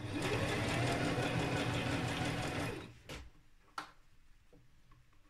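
Domestic electric sewing machine stitching steadily for nearly three seconds, then stopping, followed by two light clicks.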